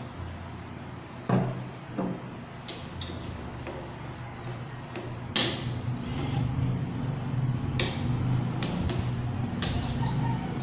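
Forks and knives clinking and scraping on plates during a meal: a handful of sharp clinks, the loudest about a second in, over a low steady hum.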